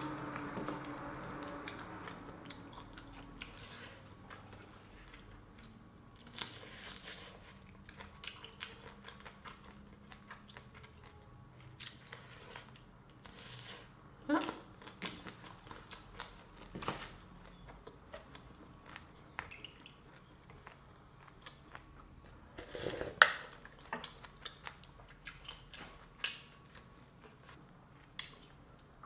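A person chewing and eating mouthfuls of fried rice and black bean noodles at close range, broken by scattered short clicks and scrapes of chopsticks and a spoon against the dishes; the sharpest click comes about three-quarters of the way through.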